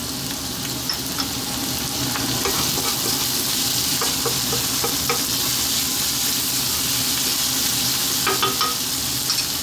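Sliced onions, garlic-ginger paste and chopped green chillies sizzling in hot oil in a nonstick wok, with a steady hiss. A wooden spatula stirring them, with small scrapes and taps against the pan.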